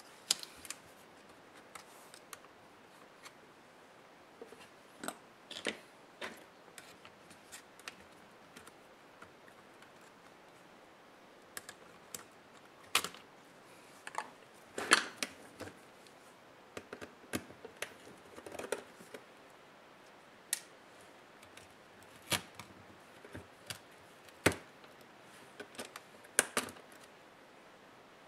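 Irregular clicks and taps of plastic and metal parts and small tools being handled while an HP Pavilion 15 laptop is taken apart, with a few sharper knocks scattered through.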